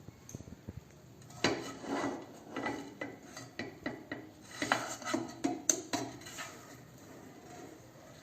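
Metal kitchen utensils clinking, knocking and scraping against a cooking pot: a busy run of clatter for about five seconds that then dies down.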